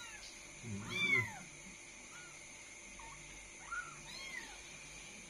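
Kittens mewing: a string of short, high-pitched mews, the loudest about a second in, then several fainter ones.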